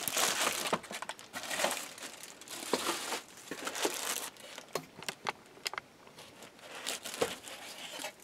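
Clear plastic packing bags crinkling and rustling in irregular bursts as the wrapped fan parts and the packing insert are handled and lifted out.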